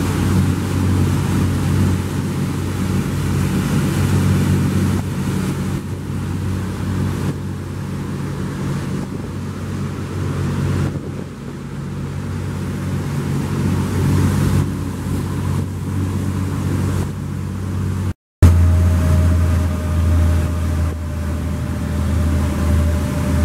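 Steady low hum of boat machinery running. About 18 seconds in, a hard cut leads to a louder, deeper hum with a faint whine that slowly drops in pitch.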